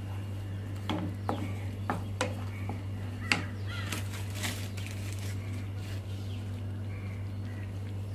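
A spoon stirring the spinach gravy in a pan, giving a few scattered clicks and taps against the metal over a steady low hum.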